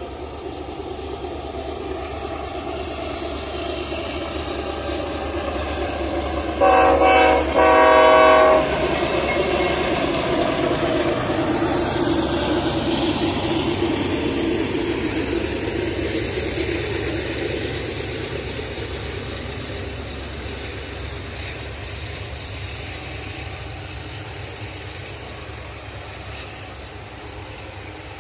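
A GE AC4400CW diesel-electric locomotive approaching and passing, with two horn blasts about seven seconds in, a short one and then a longer one. The pitch drops as it goes by. The rumble and clatter of double-stack intermodal cars rolling past follows, slowly fading.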